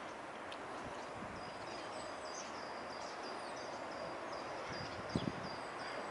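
Steady background noise with a small songbird singing a run of short high notes, repeated every half second or so through most of it. There are two brief thumps about five seconds in.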